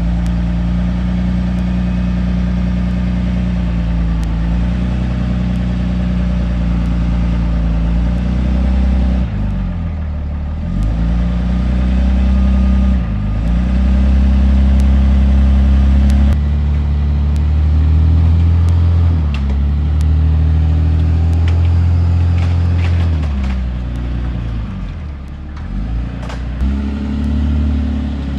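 Third-gen Dodge Ram pickup's engine running under load, its pitch sagging and rising again several times as the truck is worked back and forth.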